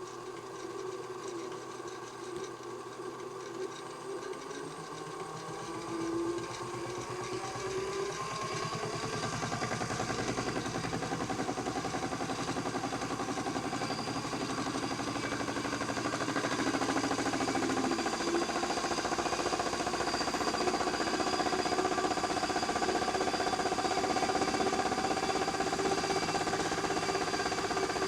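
Modified Miele toy washing machine's small electric motor and drum speeding up into a spin. The whine climbs in pitch over several seconds, then holds a steady, higher note while slowly getting louder.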